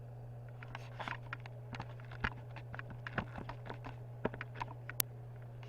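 Handling noise on a camcorder: irregular small clicks and taps, with one sharp click about five seconds in, over a steady low hum.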